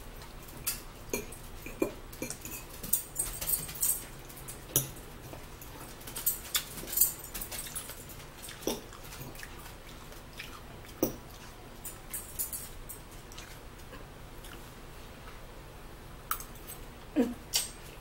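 Close-miked eating sounds: chewing and wet mouth smacks, with scattered light clicks of a fork.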